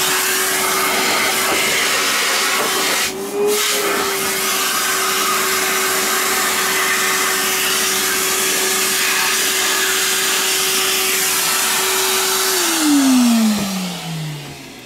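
Numatic Henry vacuum cleaner running steadily, a motor hum over rushing air, as its hose nozzle sucks dust from under a sewing machine bed. Its pitch rises briefly about three seconds in; near the end it is switched off and the motor winds down with a falling whine.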